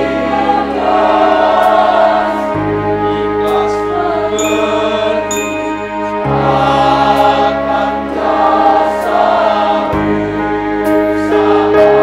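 Mixed choir of young men's and women's voices singing in harmony, holding sustained chords that change about every three to four seconds.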